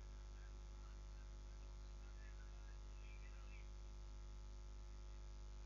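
Faint, steady electrical mains hum with a low hiss, with a few faint indistinct higher sounds now and then.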